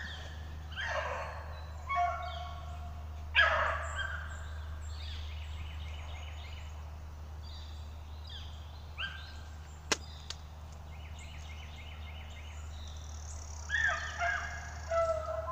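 Beagles yelping and baying in short calls, several in the first few seconds and a cluster near the end, the voice hounds give while working a rabbit's scent trail. A single sharp click about ten seconds in.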